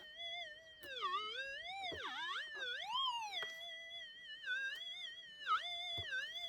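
Minelab SDC 2300 metal detector's steady threshold tone, its pitch swooping down and back up several times as the coil is swept over the ground in search of a target, most strongly from about one to three seconds in and again near the end.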